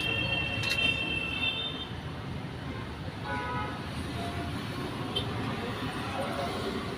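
Road traffic noise with vehicle horns: a high horn sounds for about two seconds at the start, then a shorter, lower horn sounds about three seconds in.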